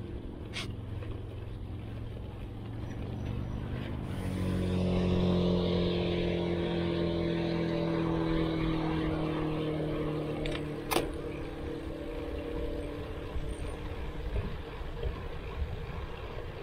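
A car passing the cyclists: its engine and tyre noise swells a few seconds in, holds, and fades out, with the engine note sliding slowly down in pitch as it goes by. Underneath is a steady rush of wind and road noise on the bike-mounted camera, and a sharp click comes near the end of the pass.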